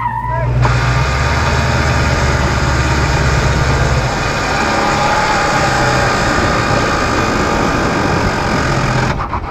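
1969 Chevy El Camino's V8 engine running hard through its old Turbo 350 automatic, heard mostly from inside the cab. A heavy low rumble drops away about four seconds in, and the engine keeps running steadily after that.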